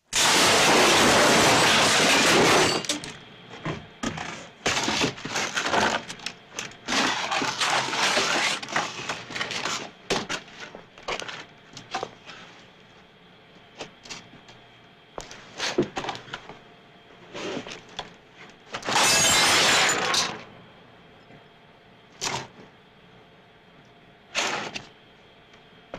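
Foley props being smashed and struck to build an action-scene fight. A loud breaking crash of about three seconds opens it, like a table and glass being smashed. A run of knocks, hits and clatter follows, then a second loud crash of about a second and a half, and a few sharp single hits near the end.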